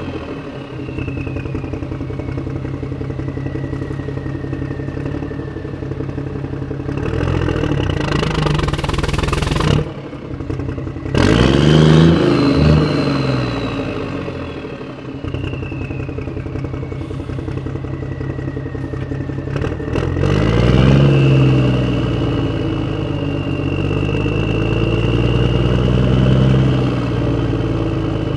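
A motor vehicle's engine running and driving, revving up and easing off several times as it pulls away through the gears. The sound dips briefly twice, about ten and eleven seconds in, as between gear changes. A thin high whine falls slowly in pitch under the engine.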